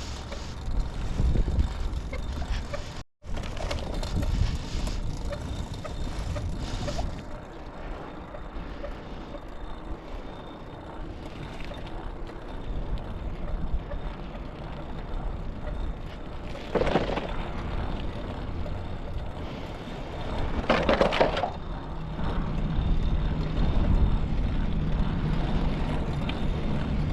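Construction-site machinery and vehicle noise: a low, uneven engine rumble, with two louder noisy bursts about two-thirds of the way through and a steady low engine hum coming in near the end.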